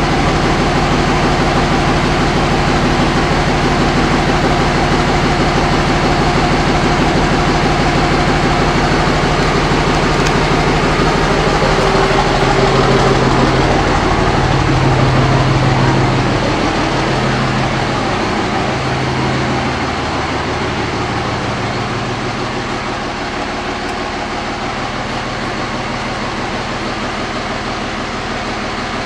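2005 Dodge Ram's 5.9 Cummins common-rail diesel idling steadily. Its tone shifts and it gets slightly quieter about two-thirds of the way through.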